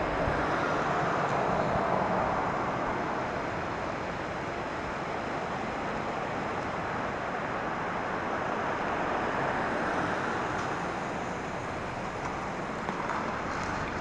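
Cars driving past at close range on an asphalt road: a steady rush of tyre and engine noise that swells as one car passes about a second in and again as another passes around ten seconds in.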